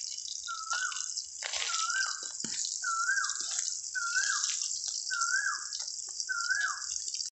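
A bird repeating a short slurred whistled note, rising then falling, about once a second, over a steady high hiss.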